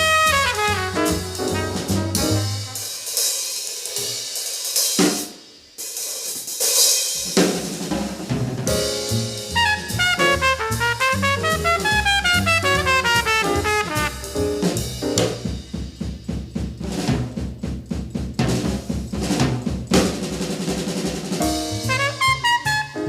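Small-group jazz recording with the drum kit to the fore: snare, rimshot and bass-drum strokes, the hits densest in the second half, around fast up-and-down melodic runs.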